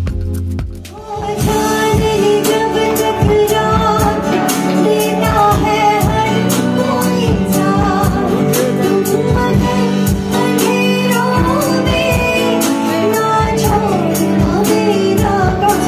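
Live band music: a woman singing with acoustic guitar and keyboard over a steady beat. It takes over about a second in from a short end of a different, bass-heavy stage-show track.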